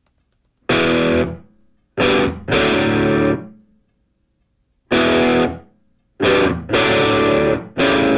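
Outro music: distorted electric guitar chords struck one at a time, each held for half a second to a second and cut off, with short silences between them.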